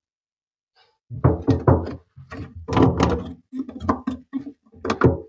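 A quick, irregular run of knocks and thunks, starting about a second in, as the newly fitted flexible washbasin hose pipe is handled and pulled out to length.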